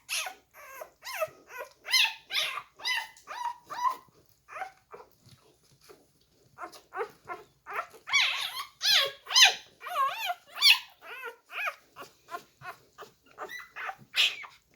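Young English Springer Spaniel puppies whining and yelping in quick succession: short, high cries that bend up and down in pitch, with a brief lull about six seconds in. The puppies are frustrated, trying to get at their mother to nurse.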